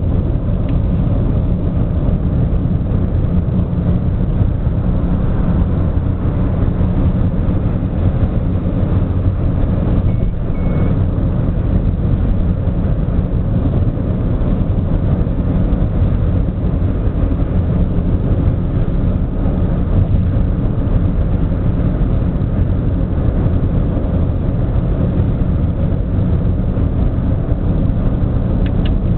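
Steady road and engine rumble inside a car's cabin at highway speed, about 80 to 90 km/h. A short faint double beep sounds about ten seconds in.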